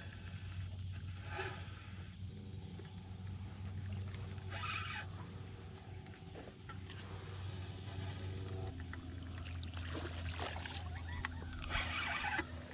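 Steady high-pitched insect drone over outdoor river ambience with a low steady hum, broken by two brief noisy bursts, about five seconds in and again near the end.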